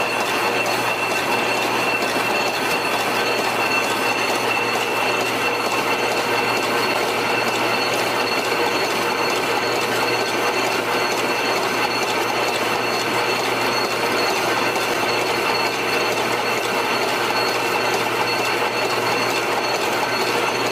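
High-speed reverse-twist barbed wire machine running steadily: a dense, fast mechanical clatter from its gears and barb-wrapping mechanism, with a steady high whine over it.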